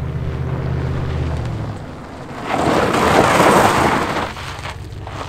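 Straight-piped 4.6L Northstar V8 of a 1996 Cadillac Eldorado rumbling steadily, then about two and a half seconds in a loud rush of tyres sliding and spraying gravel that lasts nearly two seconds, after which the exhaust rumble carries on more quietly.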